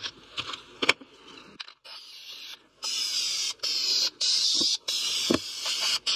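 A few light knocks as the painted wooden fretwork piece is handled and turned over. Then an aerosol can of matte black spray paint hisses in several short bursts through the second half.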